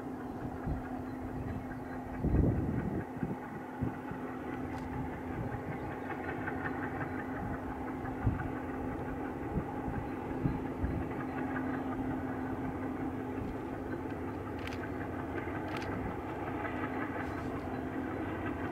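Distant diesel freight locomotive running with a steady engine hum that grows slightly louder as the train approaches. A gust of wind buffets the microphone about two seconds in.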